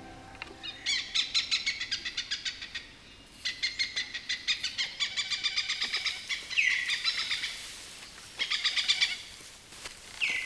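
Forest birds calling: runs of quick, high repeated chirps in several bursts, with a couple of short calls that sweep downward in pitch.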